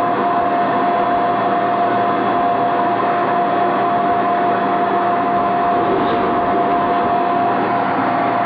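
A steady, continuous machine noise with a constant whine over an even rushing hiss, unchanging throughout.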